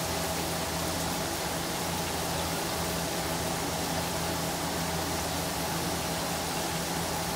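Whole flour-dusted fish deep-frying in a wok of hot oil: a steady sizzle with a low steady hum underneath.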